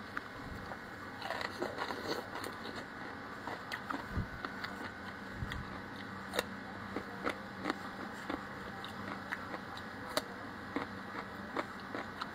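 Biting and chewing slices of cucumber close to the microphone: a string of short, irregular clicks and crunches.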